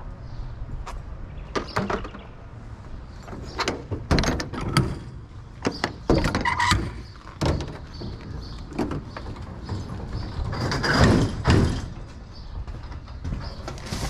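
Walk-behind mower engine running as a steady low hum, with a string of irregular knocks and clattering thumps over it, loudest about eleven seconds in.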